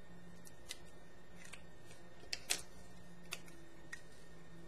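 Faint scattered clicks and light taps, about seven of them, the loudest about two and a half seconds in, over a low steady hum.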